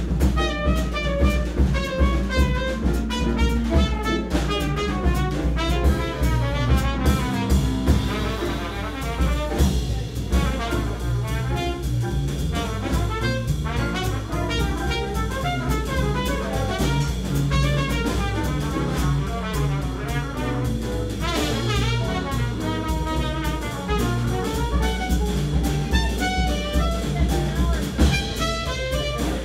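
Jazz trumpet playing a fast, flowing improvised line, with piano and drum kit accompanying.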